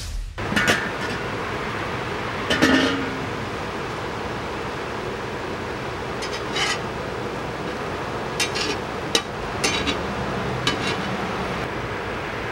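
Metal cooking utensils clinking and tapping against cookware several times over a steady hiss, with the loudest clatter about two and a half seconds in.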